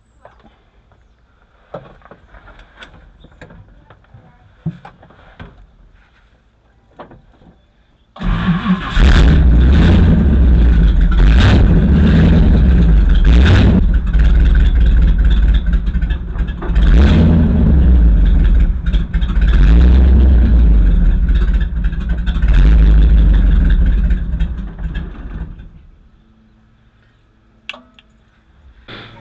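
1959 Ford Thunderbird V8 catching about eight seconds in and running for some eighteen seconds, swelling up and down again and again as the gas pedal is feathered, then dying out near the end. It won't stay running or idle on its own, which the owner thinks may come from plugged carburetor jets.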